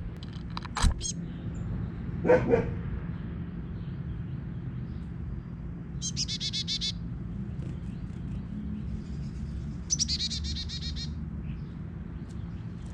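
Wild songbirds calling: a few sharp chirps near the start and a short lower call about two seconds in, then two quick trills of rapidly repeated notes about six and ten seconds in, over a steady low hum.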